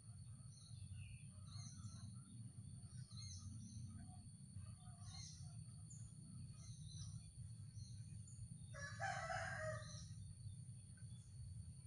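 Faint background of scattered small bird chirps over a low steady hum and a thin high whine; about nine seconds in, one louder bird call lasting just over a second.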